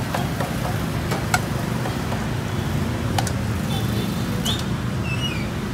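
Steady low rumble of street traffic, with a few sharp clinks of a noodle strainer and bowls at the pot.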